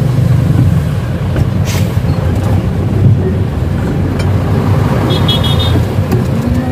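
A ten-wheeler truck's diesel engine running, a loud, steady low rumble heard inside the cab. A brief high-pitched beep comes about five seconds in.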